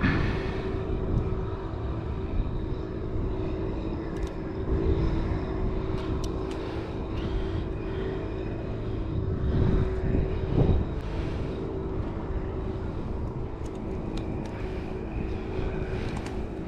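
Steady drone of a distant engine, with a low rumble of wind on the microphone and a few faint clicks of handling.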